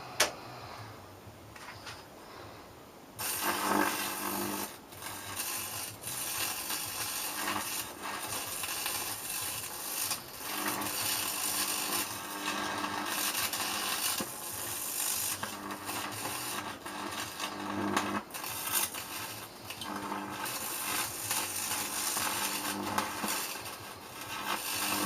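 Microwave-oven-transformer high-voltage arc buzzing and crackling on a VCR's fluorescent display. It starts about three seconds in and surges unevenly, dropping out briefly several times.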